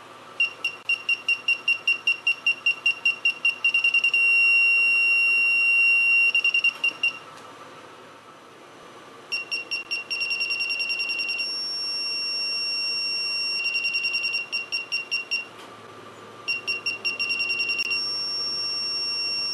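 A parking sensor system's warning beeper chirps in quick beeps that run together into a constant tone as a person closes in on the rear bumper, then breaks back into beeps and stops. The constant tone signals an obstacle at the closest range. The cycle comes three times, with short gaps between.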